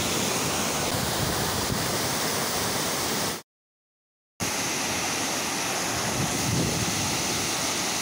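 Waterfall pouring over rock ledges into a shallow pool: a steady, dense rush of falling water. It cuts out completely for about a second a little before halfway, then resumes.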